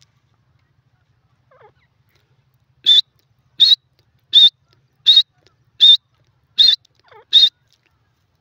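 Grey francolin calling: a run of seven sharp, high notes about one every three-quarters of a second, starting about three seconds in, with a few faint, softer low notes before and between them.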